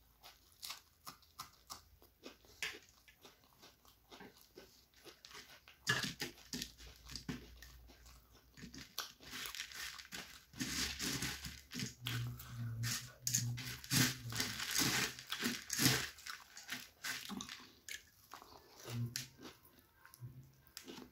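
Close-miked chewing and crunching of puffed rice (muri) mixed with chicken curry, with wet mouth sounds: a run of small crisp crunches that grows denser and louder from about six seconds in until about sixteen, with a low hum under the busiest chewing.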